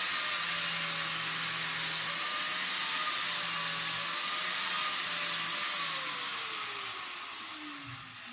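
Handheld rotary cutting tool cutting through steel bolt ends: a steady high whine with hiss. It is switched off about six seconds in and winds down, its pitch falling and fading.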